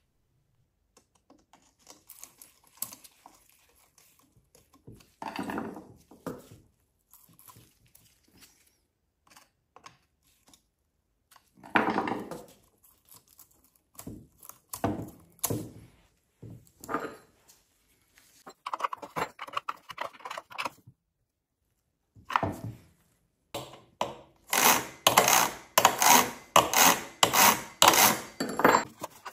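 Metal clinks, rattles and knocks from hands and tools working on a chainsaw's guide bar and chain while the chain is fitted and tensioned. Near the end comes a run of louder, quick rattling knocks.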